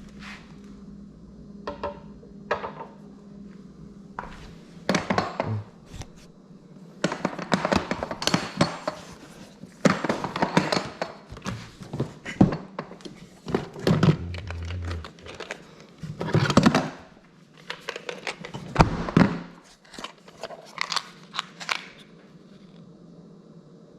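Hands working on a Tesla Wall Connector's faceplate parts: an irregular string of knocks and clicks, busiest in the middle and quieter at the start and end.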